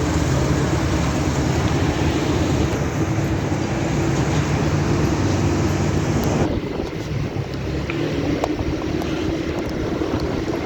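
Steady engine and road noise from a moving vehicle, with wind on the microphone. About two-thirds of the way through, the hiss drops off sharply and the sound turns quieter and lower.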